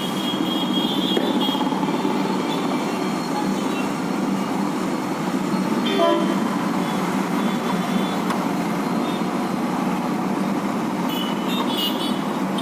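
Steady road traffic noise with a few short vehicle horn toots, near the start, about halfway and near the end.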